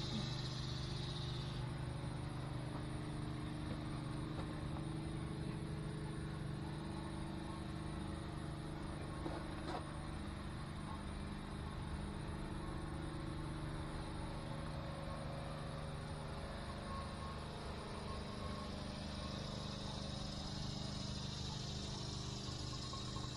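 A steady low machine hum, as of a motor running, with insects trilling at the start and again near the end.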